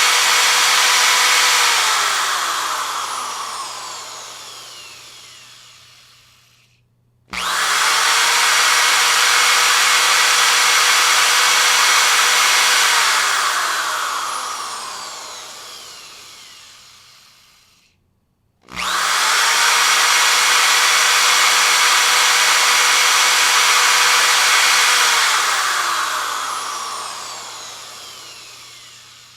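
Power drill running at full speed, then released so the motor winds down with a slowly falling whine. It is started again twice, each time jumping straight to full speed, running for about five seconds, and winding down again after the trigger is let go.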